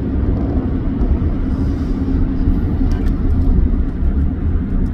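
Hyundai Veracruz diesel SUV cruising at highway speed, heard from inside the cabin: a steady low rumble of engine and road noise at about 120 km/h and 2400 rpm.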